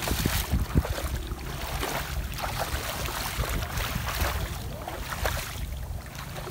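Legs splashing through knee-deep muddy pond water as a person wades quickly, an irregular run of sloshes and splashes.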